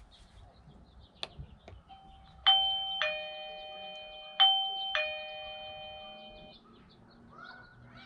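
Doorbell chime playing a two-note ding-dong twice, each note ringing on and fading away.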